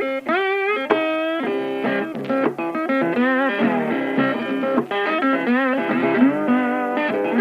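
Instrumental ambient music with a guitar lead playing notes that bend and waver in pitch over held lower notes.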